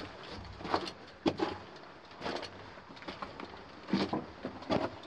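Footsteps on the loose rock and grit of a mine tunnel floor, an uneven scuff or crunch every second or so, loudest about a second in and near the end.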